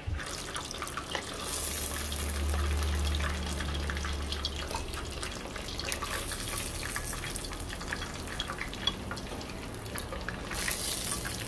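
Chicken pieces deep-frying in a pot of hot oil: steady sizzling full of crackles and pops, swelling louder a few times, over a low steady hum.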